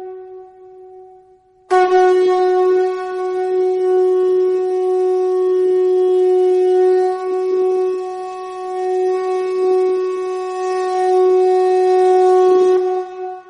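Conch shell (shankh) blown for an aarti in one long, steady note. It starts abruptly after a short lull about two seconds in and breaks off near the end.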